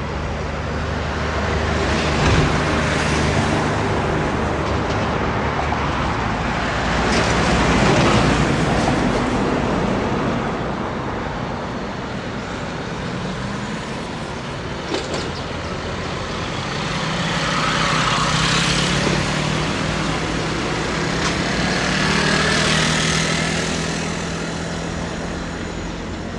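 Steady road traffic on a busy highway, with heavy vehicles such as trucks and buses passing one after another; each swells up and fades away.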